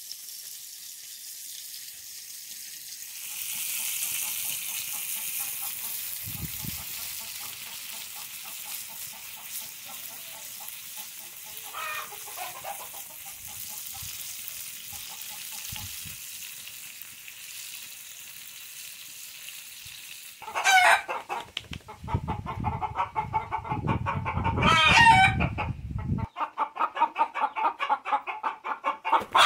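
Fish pieces frying in oil in a pan over a wood fire, a quiet sizzle; about twenty seconds in a hen starts clucking loudly and rapidly, about three clucks a second, and keeps on.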